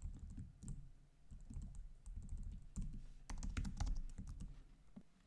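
Typing on a computer keyboard: irregular key clicks, with a quicker run of keystrokes a little past three seconds in.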